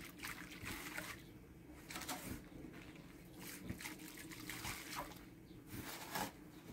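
Trowel and wooden board scraping and turning wet cement-and-gravel mix: a series of faint, irregular gritty scrapes with a wet, watery quality.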